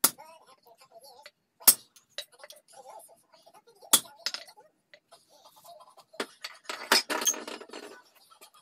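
A hammer strikes a steel hand punch held on a steel plate, stamping dimples into the metal: three sharp metallic hits about two seconds apart, with a lighter tap after the third. A short metallic clatter follows near the end as the punch is laid down on the plate.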